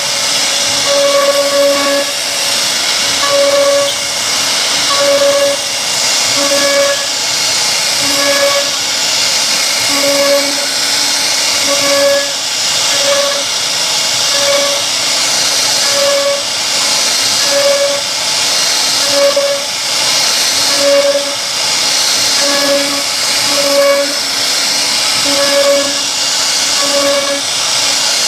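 CNC router machining a solid-wood door: a steady high hiss from the spindle and cutter, with a short pitched tone that comes and goes about once a second as the machine repeats its cutting passes.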